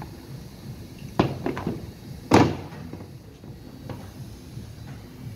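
A few clicks about a second in, then one loud knock a little past two seconds, as the filter of a Chevrolet 4L60-E automatic transmission is pulled off the valve body and handled.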